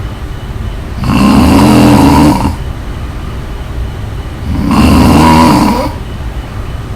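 A woman snoring in her sleep: two loud snores of just over a second each, about three and a half seconds apart, with quieter breathing noise between them.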